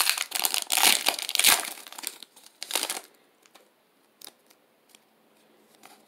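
Foil wrapper of a Pokémon card booster pack crinkling as it is opened and the cards are pulled out: a dense crackle for the first couple of seconds, a last burst near three seconds, then a few faint clicks of the cards being handled.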